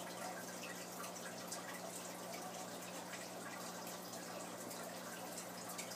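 An aquarium's water circulation, probably from the tank's filter: steady trickling with many small drips and pops over a steady low hum.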